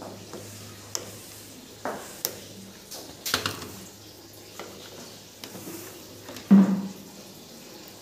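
A metal screwdriver clicking and tapping on a washing machine's plastic top panel while prying off a screw cover and seating the tip in the screw, with a louder knock about six and a half seconds in. A faint steady low hum runs underneath.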